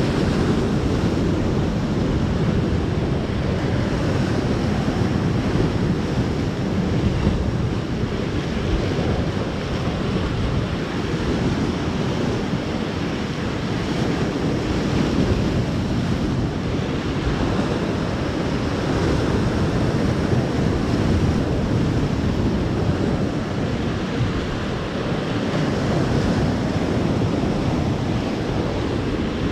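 Sea surf breaking and washing over volcanic rocks just below, a steady rushing roar that swells and eases slowly, with wind buffeting the microphone.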